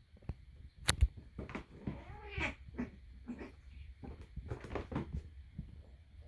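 A domestic cat gives a short, whiny call with a rising and falling pitch about two seconds in, during a play-fight with another cat. The call is a sign of her being annoyed. Scuffling and a sharp knock about a second in come with it.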